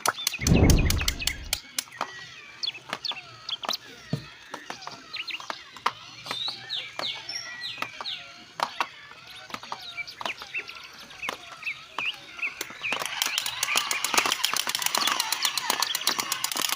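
Birds chirping in short high calls, mixed with many sharp clicks that come thicker near the end, and a low thump about half a second in.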